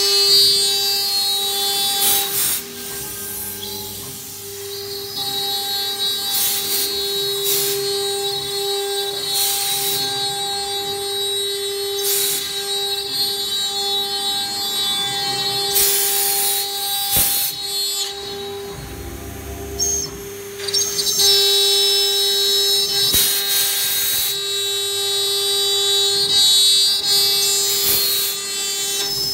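STM1325 CNC router spindle running with a steady high whine as its bit cuts letters into an MDF sheet, broken every few seconds by short, harsher hissing rasps of the cut.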